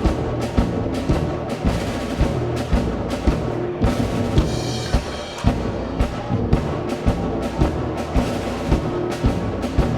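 Brass and drum music with a steady beat of about two drum strokes a second. The beat breaks off for about a second, some four seconds in, under a held bright ringing sound, then picks up again.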